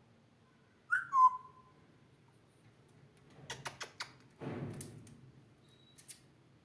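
African grey parrot whistling: a short whistle about a second in that slides down in pitch. A few seconds later come a quick series of clicks and a brief noisy rasp.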